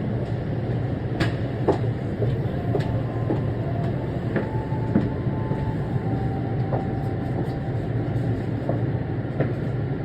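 Steady running noise inside a CDGVAL automated airport shuttle train car in motion, with scattered light knocks and clicks and, for a few seconds midway, a faint steady whine.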